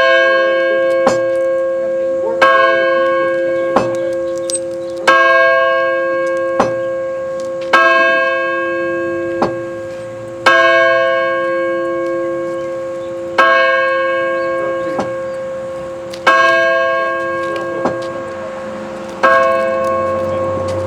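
A single large church bell tolling slowly, eight strokes about every three seconds, each ringing on and fading before the next. A faint knock falls between strokes.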